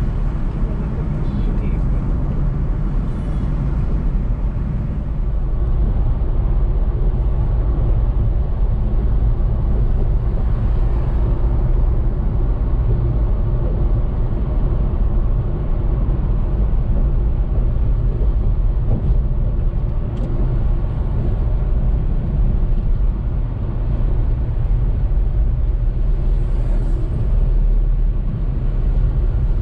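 Car driving steadily at road speed: a continuous low rumble of engine and tyres on tarmac, with wind noise.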